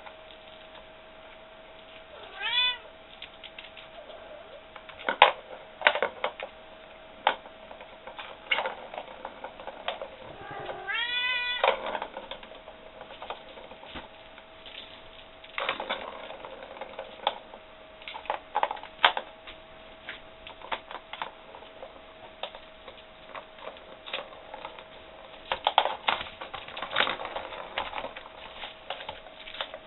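A kitten meows twice, a short meow about two seconds in and a longer one around eleven seconds. Between and around them come irregular plastic clicks and clatter from paws batting at a round plastic ball-track cat toy.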